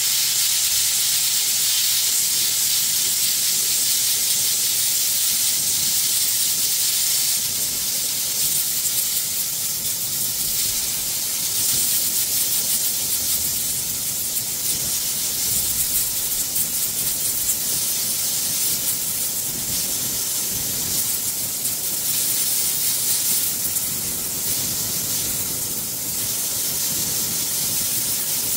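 Gas torch burning with a steady hiss as its blue flame heats a steel exhaust tube red hot for hand bending.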